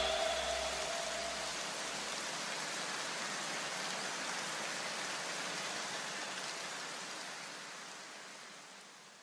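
A steady rushing hiss, like rain or static, that slowly fades away to silence near the end, with the last low note of the music dying out in the first two seconds.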